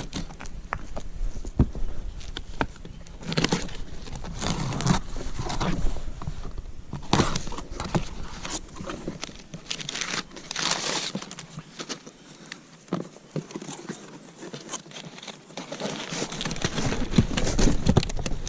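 A cardboard shipping box being opened and unpacked by hand: irregular rustling and crinkling of cardboard and packing material, with scattered knocks and scrapes.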